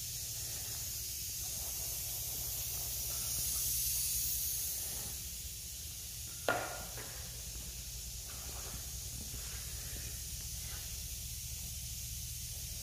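Steady high hiss over a low hum, with one sharp click about six and a half seconds in.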